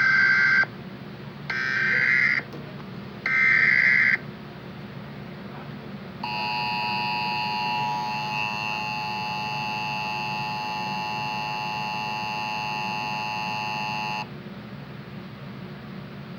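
Emergency Alert System tones: three short bursts of SAME digital header data about a second apart, then the two-tone EAS attention signal held steady for about eight seconds before cutting off. The sequence marks the start of an emergency alert broadcast.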